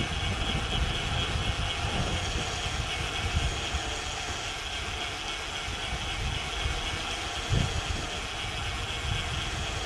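Wind rushing over the microphone with low, gusty buffeting as a bicycle coasts downhill.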